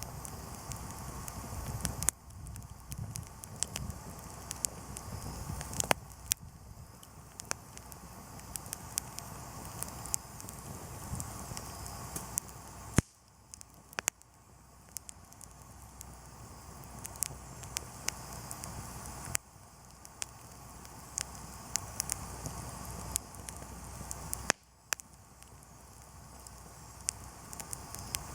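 Wood campfire burning, crackling with many irregular sharp pops over a steady hiss. The sound drops out abruptly for a moment three or four times.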